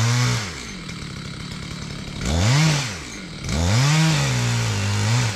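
Two-stroke chainsaw revving up and down: a high run at the start that drops away, a short blip about two and a half seconds in, then a longer rev that holds before falling back near the end.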